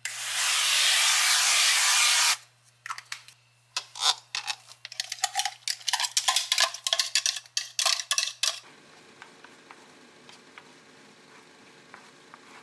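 Kitchen work: a loud, steady hiss for about two seconds that cuts off suddenly, then utensils and dishes clinking and clattering in quick, irregular strokes for about six seconds, then only a faint background with a few light ticks.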